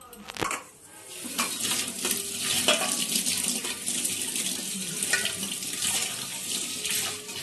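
Water running steadily with a rushing hiss. It starts about a second in, after a short clatter, and eases off near the end.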